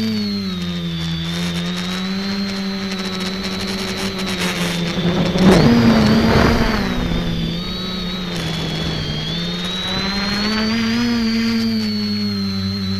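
Electric motors and propellers of an X550 multicopter heard from its onboard camera: a steady buzzing hum with a high whine above it, the pitch sagging and rising as the throttle changes. About halfway through, a louder rush of air noise swells for a second or two as the craft swings and tips down, then the hum settles back.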